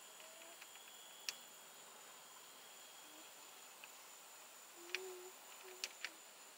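Quiet outdoor background: a faint, steady high-pitched insect trill, with a few soft clicks and some brief faint low tones near the end.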